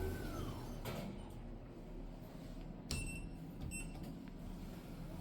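Low steady hum of the airport building, with a single knock about a second in and two short, high electronic beeps a little under a second apart near the middle.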